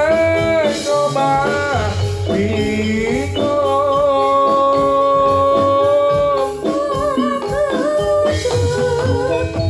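Javanese gamelan ensemble playing Jathilan accompaniment: a melodic lead line over steady drumming, holding one long note in the middle before moving on.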